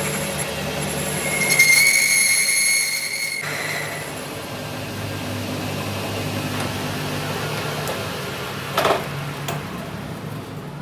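Metal lathe cutting steel, its motor running with a steady hum. From about one and a half to three and a half seconds in, the cutting tool squeals on the steel in a high, ringing note. There is a short knock near the end.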